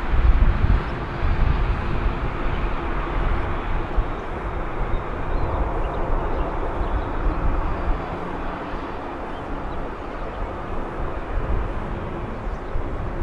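Boeing 787 Dreamliner's GE jet engines running at low power as the airliner rolls slowly on the ground, a steady jet whoosh over an uneven low rumble.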